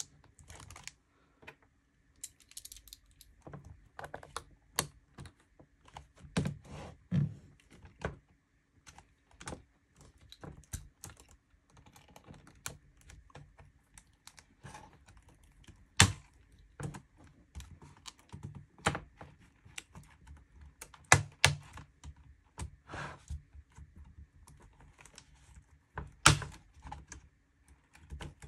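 Dell Latitude E7450 laptop keyboard being pressed down and pried out of its frame with a small screwdriver: irregular plastic clicks and taps, with a few louder snaps along the way.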